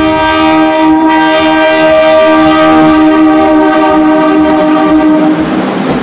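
Horn of a Pingxi Line diesel train sounding one long, loud, steady blast that cuts off about five seconds in, leaving the rumble of the train rolling past close by.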